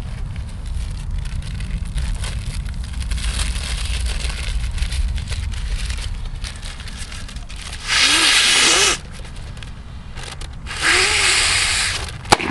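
A paper bag being unwrapped with light rustling, then blown up with two long breaths into it, each about a second. Near the end comes a single sharp bang, the bag bursting.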